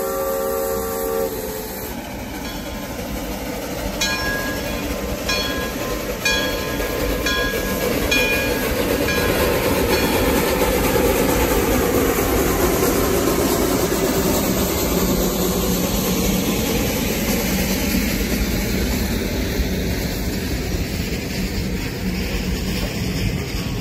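Shay geared steam locomotive passing close by. Its steam whistle sounds and cuts off about a second in, its bell rings about once a second for several seconds, then the engine's steam and rumble swell and the open passenger cars roll past with a clickety-clack.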